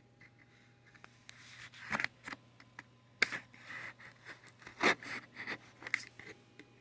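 Scratching, scraping and rustling of toy packaging being handled, with irregular clicks and knocks, as a squishy toy is worked out of its box.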